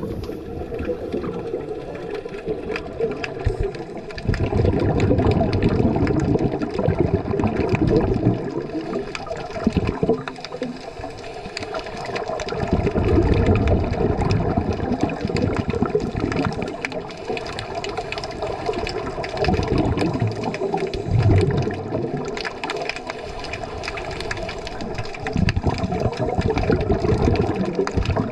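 Underwater sound through a camera housing: muffled rushing and gurgling of a scuba diver's regulator breathing and exhaled bubbles, swelling and fading every few seconds.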